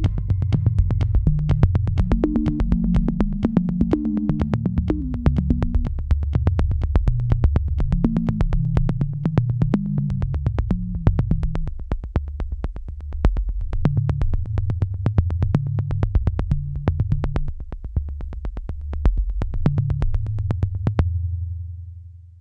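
Electronic background music with a synthesizer bass line and a steady fast beat; the beat stops near the end and the bass fades out.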